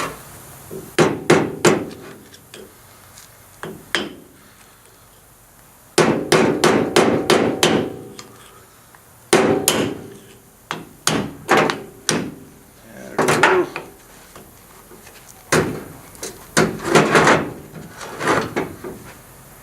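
Hammer blows on the steel differential carrier of a Dana 44 axle during teardown, knocking the bearing shims loose. The blows come in irregular groups: single knocks and short fast runs, with pauses between them.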